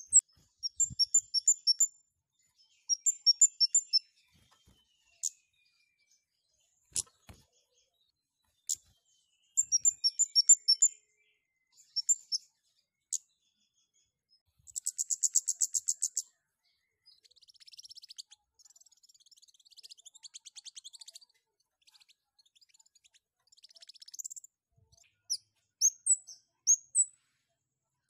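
Male scarlet-headed flowerpecker calling: quick bursts of high, sharp chirps, each burst lasting about a second. About halfway through comes a fast buzzy trill, then a spell of softer twittering, and the sharp chirp bursts return near the end.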